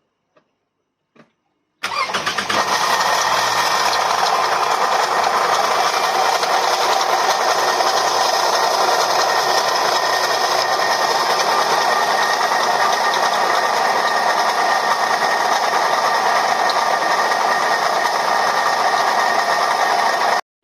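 Toyota Ipsum engine starting about two seconds in and running with a very loud abnormal noise, a steady high whine over a harsh mechanical din, coming from a failing water pump. The noise cuts off suddenly near the end.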